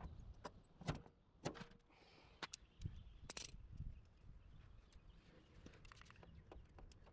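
A few faint, scattered clicks and knocks, spaced irregularly, over a low background.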